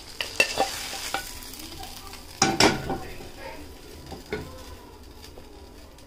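Oil sizzling steadily around a mashed potato cake frying in a skillet, with several sharp knocks and scrapes of a utensil against the pan, the loudest cluster about two and a half seconds in.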